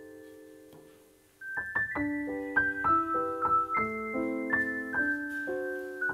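Background piano music: a held chord fades almost to nothing, then about a second and a half in a gentle melody of single notes and chords starts again, a few notes a second.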